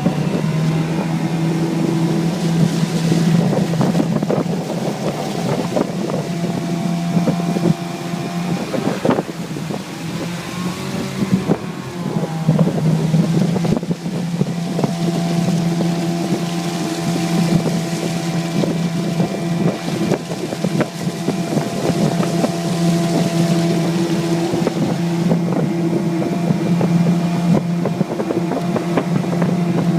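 Mariner 15 hp outboard motor pushing a jon boat, running steadily under way; about a third of the way in it eases off for a few seconds and then comes back up in pitch. Wind buffets the microphone.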